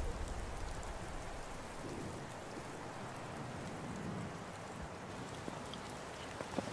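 Steady wind-like hiss of a snowy forest ambience, with a low rumble dying away in the first moment and another low swell about four seconds in.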